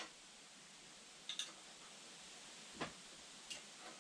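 A handful of light, sharp clicks and taps, about five in four seconds, over a faint hiss: the sounds of hand work on the engine while fitting the fuel lines to the injectors.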